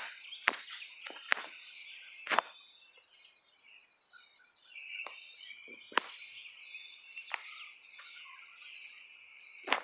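Birds chirping and insects trilling in a steady high chorus, with about half a dozen short sharp clicks scattered through.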